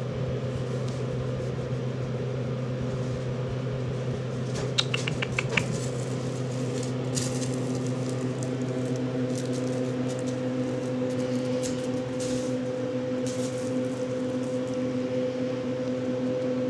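Steady low background hum. A short quick run of about six clicks comes about five seconds in.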